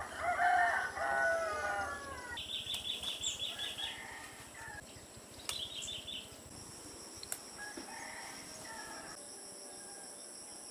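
A rooster crows once, a long call falling away about two seconds in. Rapid high chirping follows in two short runs, over a steady high insect drone.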